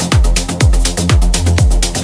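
Progressive house track: a four-on-the-floor kick drum about twice a second over a sustained bassline, with crisp hi-hats between the kicks.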